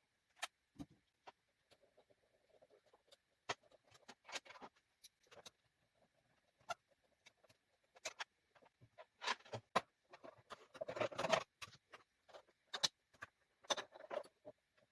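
Handling noises at a sewing machine: scattered small clicks and taps of metal parts and tools, with a longer scraping rustle about two-thirds of the way through, as a needle that has dropped below the needle plate is worked out of the machine.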